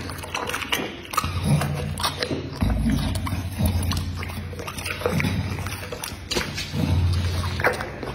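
Pit bull licking its lips and chops after eating: a quick run of wet smacking and slurping mouth sounds. A low hum comes and goes underneath.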